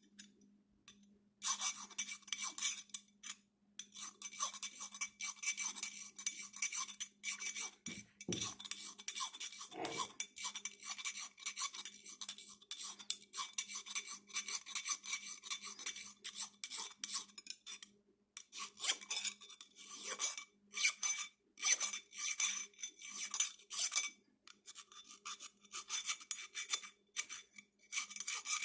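Hand file scraping the steel of a Council Tool boy's axe head in quick repeated strokes, with a faint metallic ring, taking the sharp edge off the bottom of the head. It pauses twice and there are two dull knocks about a third of the way in.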